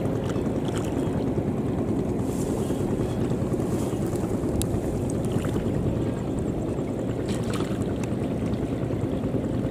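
A motor running steadily nearby, a dense, even low rumble, with a few brief sharp sounds over it.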